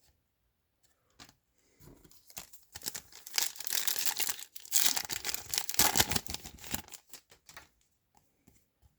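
A trading card pack wrapper being torn open and crinkled by hand: a crackling tear lasting several seconds, with a short break midway.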